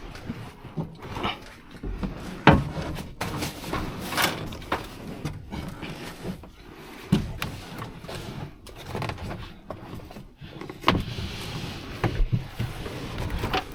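Irregular knocks, scrapes and rustling of a cab trim panel being handled and fitted inside a truck cab, with a sharper knock about two and a half seconds in.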